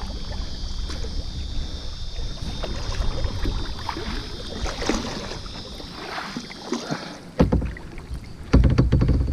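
Wind rumbling on the microphone in a canoe, with a steady high-pitched buzz that stops about seven seconds in, then a few loud knocks near the end.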